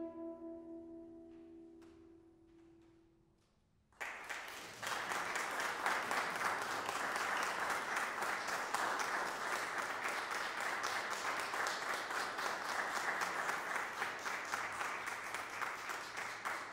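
The final chord of tenor saxophone and piano dies away over the first few seconds. About four seconds in, applause breaks out and carries on steadily.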